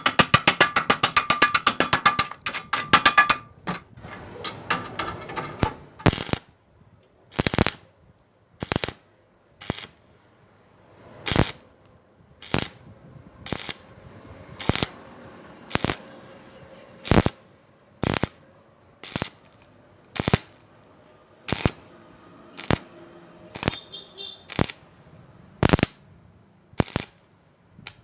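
Shielded metal arc (stick) welding with an E6013 rod. The arc crackles without a break for the first few seconds, then comes in short crackling bursts about once a second as it is struck and broken again and again to bridge a gap.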